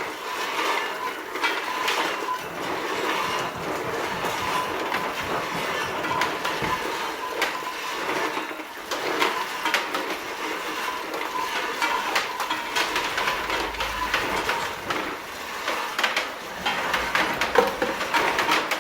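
Ginkgo nut sorting machine running, with nuts clattering and rattling through it in a dense, steady stream of clicks.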